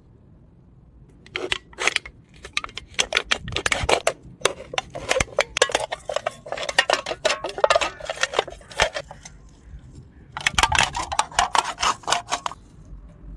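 Utility-knife blade cutting into an aluminium drink can: a run of sharp clicks and crackling scrapes as the thin metal wall is pierced and slit. Near the end, a denser stretch of crinkling as the cut metal is worked open.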